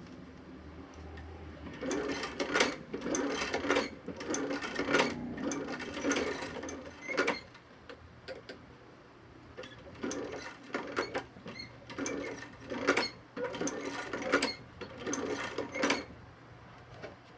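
Sewing machine stitching a leather reinforcing patch onto a boot in two runs of rapid stitches, separated by a short pause.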